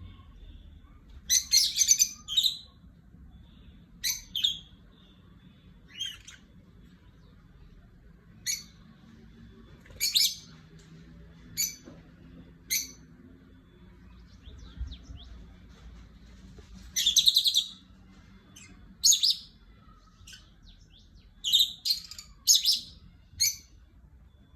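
Pet cockatiels chirping: short, sharp, high-pitched calls every second or two, with louder clusters of several calls about two seconds in, around seventeen seconds in and near the end.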